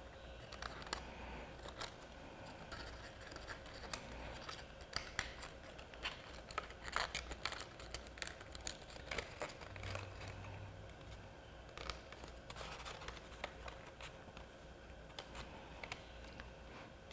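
Cardstock paper being folded, pressed and handled: light rustles, crinkles and small irregular taps scattered throughout, over a faint steady hum.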